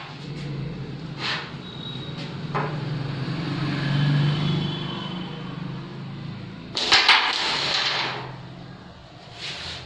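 Carrom striker flicked across a carrom board, with a loud cluster of sharp clacks about seven seconds in as it hits the coins, and a few lighter wooden clicks earlier on. A low hum runs underneath and swells around four seconds in.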